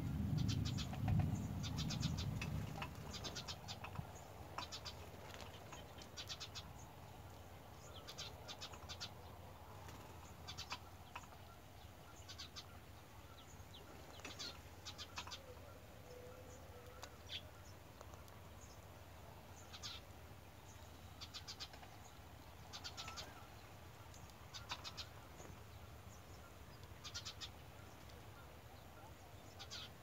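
Young bird calling from a nest in short bursts of rapid, trembling high notes, one burst every second or two. A low rumble is loudest in the first few seconds.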